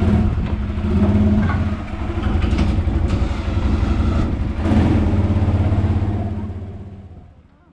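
Arctic Cat ATV engine running as the quad drives at low speed, picking up briefly about a second in and again near five seconds, then fading away near the end.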